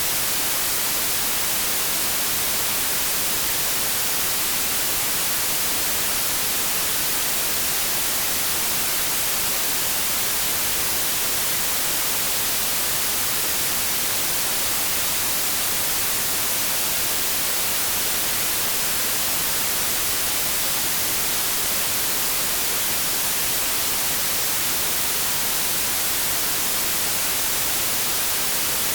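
Steady white noise: an even, unchanging hiss, brightest in the treble, with no tones or breaks.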